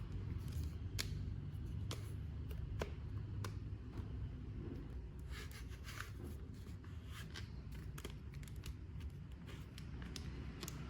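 Hands handling packaging and a toy figure during an unboxing. There are a few sharp clicks in the first few seconds, then rustling and scraping.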